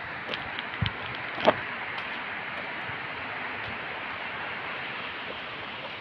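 Steady rush of a fast-flowing mountain river, with a few faint clicks and knocks in the first second and a half.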